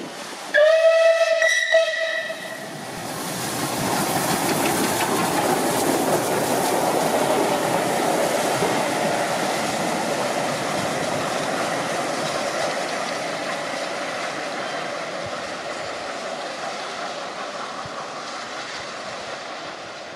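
A train passing through a station on the West Coast Main Line. Half a second in it sounds a single held warning tone lasting about a second and a half. Then the rush and rumble of the passing train builds over a few seconds and fades slowly away.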